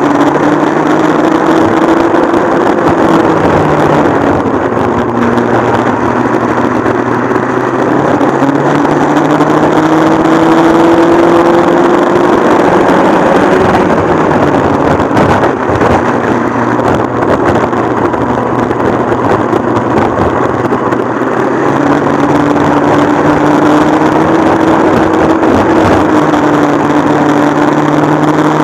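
Modified McCulloch MC49 single-cylinder two-stroke kart engine running hard at racing speed, its pitch climbing for several seconds as the kart accelerates, falling back, then climbing again near the end.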